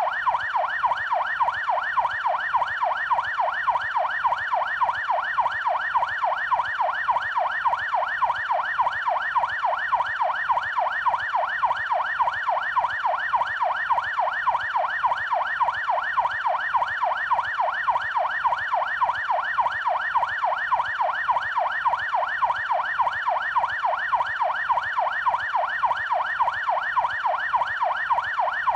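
Police yelp siren, its pitch sweeping quickly up and down over and over, several cycles a second, steady and unbroken.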